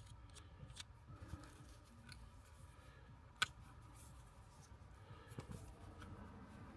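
A razor blade cutting through an Alcantara shift boot: faint scraping and slicing with scattered light clicks, and one sharper click about three and a half seconds in.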